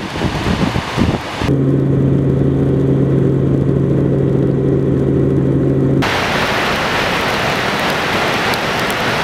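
Rushing floodwater pouring over a dam spillway, then about a second and a half in a steady aircraft drone with a low hum, typical of a helicopter cabin, and from about six seconds in the loud even rush of fast floodwater running through trees.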